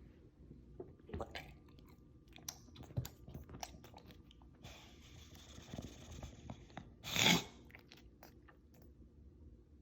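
One short cough about seven seconds in, standing out above soft clicking and crunching sounds.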